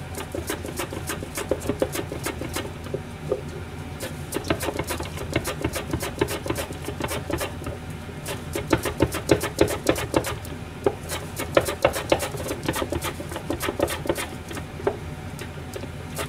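A carrot being pushed back and forth across a mandoline slicer's blade, a quick cutting stroke several times a second, over a steady low hum.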